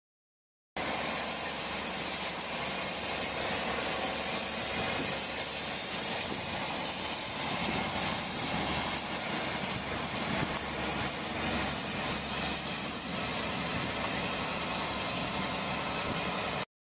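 Vehicle engine running steadily, with a thin high whine that drops to a lower pitch near the end; the sound starts abruptly and cuts off abruptly.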